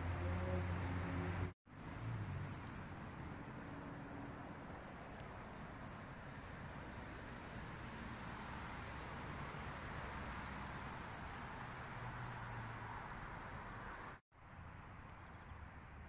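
Outdoor woodland ambience: a steady rushing haze with a faint, high, thin chirp repeating about twice a second. A low droning hum is heard for the first second and a half. The sound drops out briefly twice, near the start and near the end.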